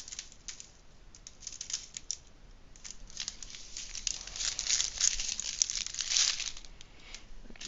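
Small plastic packets of diamond-painting drills crinkling as they are handled. It starts as scattered light clicks and becomes steadier crinkling about three seconds in.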